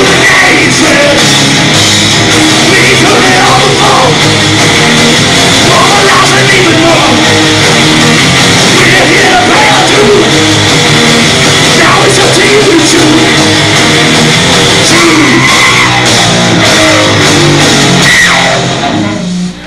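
Live heavy doom metal band playing loud and distorted, with bass guitar, drums and a singer at the microphone. The song comes to an end just before the close.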